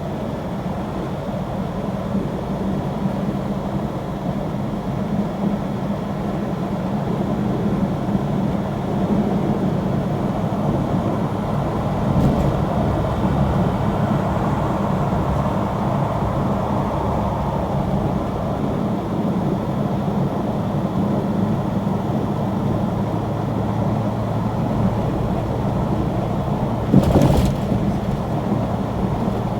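A steady low engine hum, with a short knock about twelve seconds in and a louder brief sound near the end.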